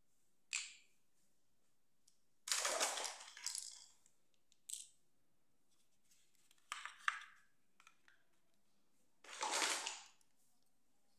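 Small plastic toy accessories being handled and set down on a hard floor: five short separate clatters and rustles, the longest about a second, with near silence between them.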